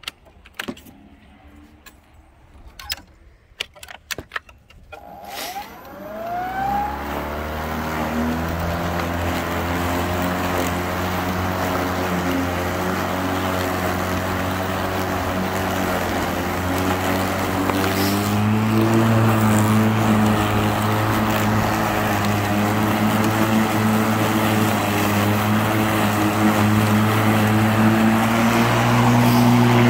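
Greenworks Pro 80V battery lawn mower's electric motor and blade: after a few clicks, the motor spins up about five seconds in with a rising whine. It settles into a steady hum while cutting grass, and about 18 seconds in it steps up slightly in pitch and loudness.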